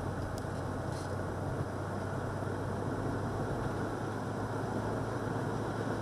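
Car driving along a road, heard from inside the cabin: steady tyre and road noise over a constant low engine hum, with two faint ticks in the first second.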